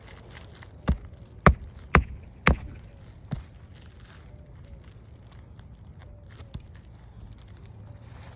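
Hammer driving a roofing nail into a shingle: four sharp blows about half a second apart, then a lighter tap.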